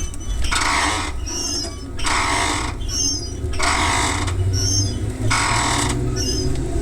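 Cabin of a moving electric train, a low running hum under a regular rasping noise that comes back about every one and a half seconds with a squeaky edge: the abnormal, slightly muffled noise noted on this run, where one traction motor may be cut out.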